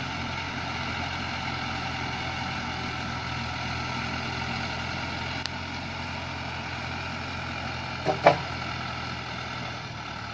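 Diesel engine of a loaded Dongfeng log truck running steadily as the truck creeps forward over rough ground. About eight seconds in, two short, sharp sounds come close together, louder than the engine.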